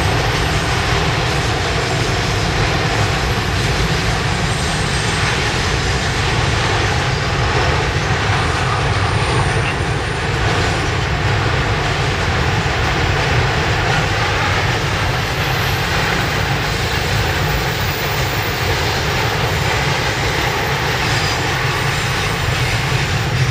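Container wagons of a long freight train rolling past, a steady rumble of steel wheels on the rails.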